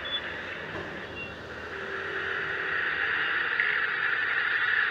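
Scooter and car traffic on a rain-wet street heard from a riding scooter: a steady road hiss with engine noise, growing louder from about two seconds in.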